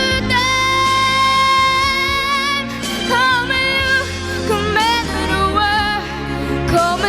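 A song: a woman's voice holds one long note for about two seconds, then sings shorter notes with vibrato over a steady instrumental accompaniment.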